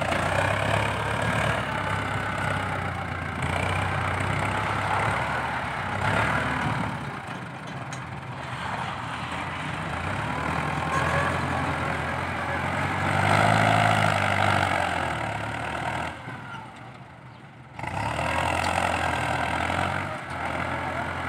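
Ford 6640 tractor's diesel engine running steadily as it pulls a disc harrow across loose sandy fill. The sound drops away briefly about three-quarters of the way through, then comes back.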